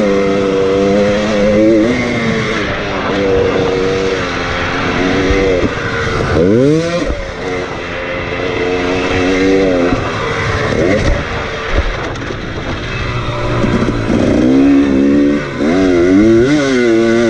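KTM 300 two-stroke dirt bike engine running hard on the throttle, its pitch holding steady on the straights with a sharp rise and fall about six seconds in and several quick rises and falls near the end as the rider slows into a corner.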